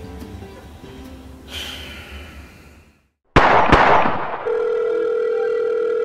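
Film soundtrack: background music fades out, then after a moment of silence two sharp hits land in quick succession, followed by a steady electronic tone with a slight even pulse.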